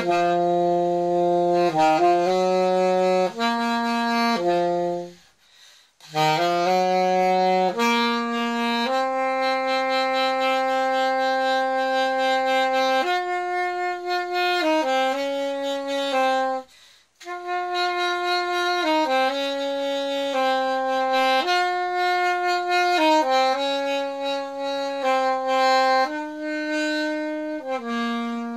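Alto saxophone played solo with no accompaniment: a slow melody of long held notes, one at a time. It breaks off twice, about five seconds in and again a little past halfway, where the player stops for breath.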